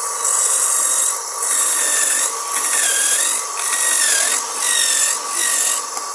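Homemade electric coconut grater, its spinning grating drum driven by a salvaged water-pump motor, rasping as coconut flesh is pressed against it in repeated pushes, about six strokes each roughly a second long. The motor's whine dips under the load of some strokes.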